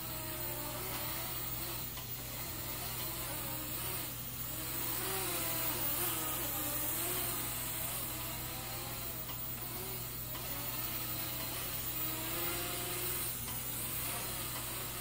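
Syma X11 mini quadcopter in flight: its four small geared motors and propellers make a mosquito-like buzzing whine whose pitch wavers up and down as the throttle changes.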